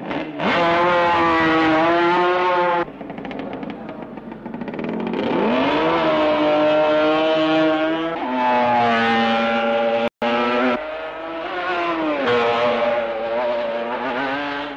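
Racing sidecar outfits' engines at high revs, a loud high engine note that rises and falls as the outfits accelerate, shift and go by. The soundtrack cuts abruptly about three seconds in and drops out for an instant about ten seconds in.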